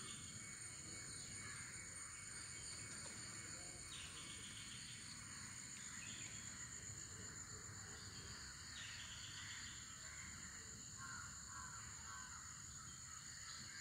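Faint insect chorus: a steady high-pitched drone with a pulsed trill that repeats about every four to five seconds. A bird calls a few short times near the end.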